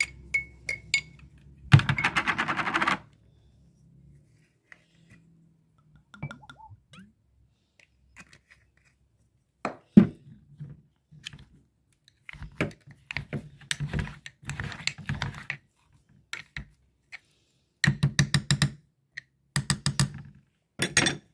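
Kitchen utensils and containers being handled: bursts of quick clicking and rattling, with one sharp knock about ten seconds in.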